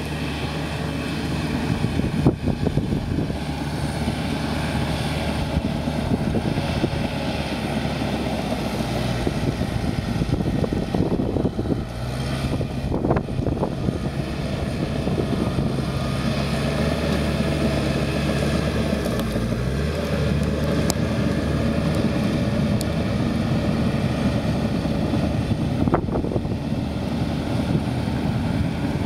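Komatsu crawler dozer's diesel engine working steadily under load as it pushes ash and burnt debris. Its pitch dips briefly and rises again about two-thirds of the way through, and a few sharp knocks come through.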